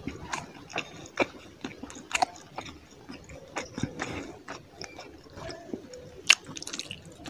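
Close-miked mouth sounds of eating fish curry and rice: chewing with irregular sharp smacks and clicks of the lips and mouth.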